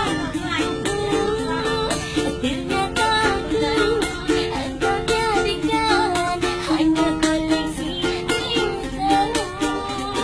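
A woman singing while strumming a kentrung, a small Indonesian ukulele, with steady chord strumming under her wavering melody.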